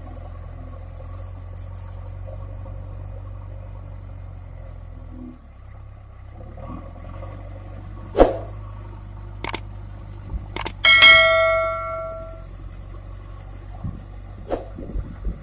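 Diesel engine of a JCB 3DX backhoe loader running low and steady, with a few sharp knocks and then one loud metallic clang that rings for over a second, like steel struck on steel.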